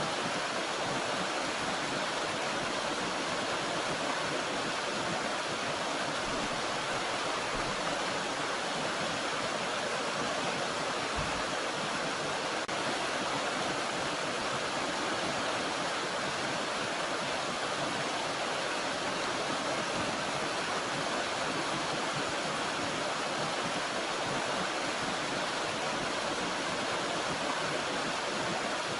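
Steady rushing water of a small mountain stream, a continuous even hiss that does not change.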